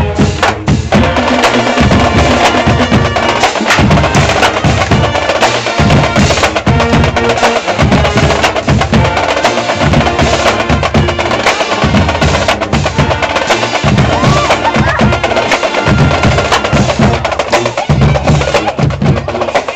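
Marching band drumline playing a fast cadence close by: a dense stream of sharp stick and drum hits from the snares and tenor drums over deep bass drum strokes that break off briefly every few seconds.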